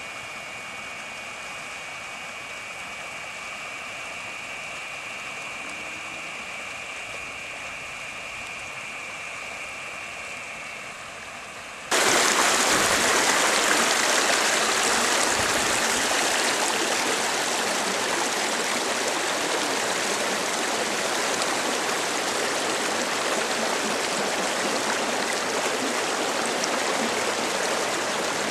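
Floodwater rushing, softer at first with a steady high tone over it, then suddenly much louder about twelve seconds in and staying loud.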